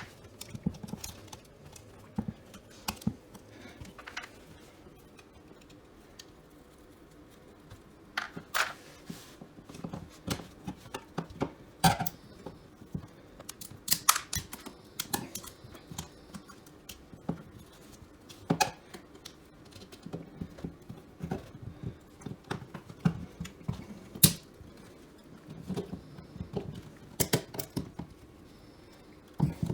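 Irregular small clicks and taps of a screwdriver and wires being worked at an old wall outlet, as the wires are freed from its push-in holes; some clicks are sharp and loud, with quieter handling sounds between.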